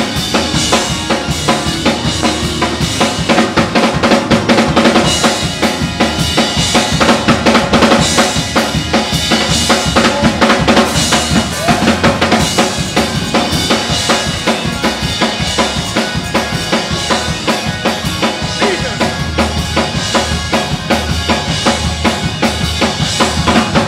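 Up-tempo gospel shout music: a drum kit keeping a fast, driving beat on bass drum, snare and cymbals under sustained organ chords.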